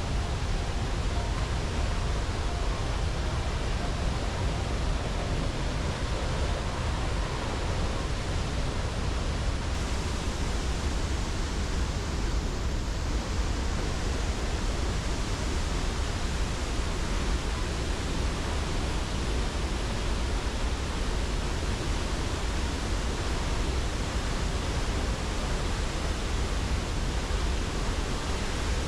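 Athirapally Falls pouring steadily: a dense, unbroken rush of falling water, heaviest in the low end.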